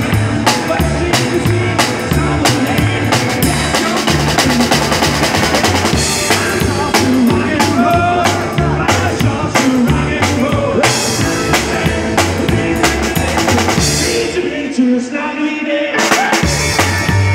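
Live rockabilly band playing an instrumental passage: a standing drummer's snare, bass drum and cymbals keep a fast, steady beat under electric guitar and a low bass line. Near the end the low end drops out for about a second and a half, then the full band comes back in.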